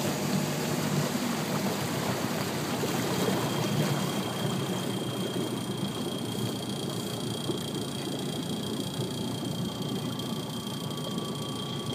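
A small motor tender's engine runs at low speed under the rushing and lapping of water along the hull. A faint steady high whine joins about three seconds in.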